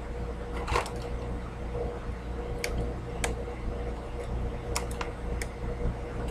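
A person chewing a big, soft dark chocolate cookie, with a handful of short sharp clicks over a steady low hum.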